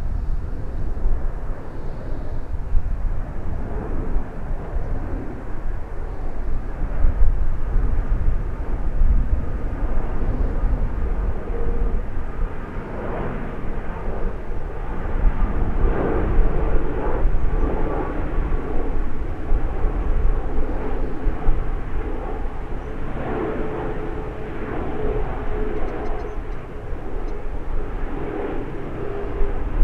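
Japan Airlines Boeing 787 climbing out overhead and banking, its GEnx turbofans giving a steady, low jet roar. A faint steady tone joins in about halfway through.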